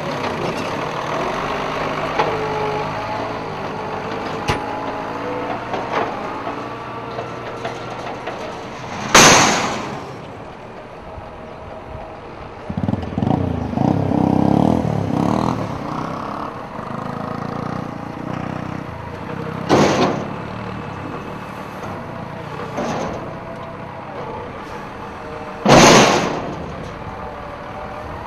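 Farm tractor engine running under working load, its pitch rising and falling, with a heavier rumbling stretch about halfway through. Three brief, loud hissing bursts stand out, about ten and six seconds apart.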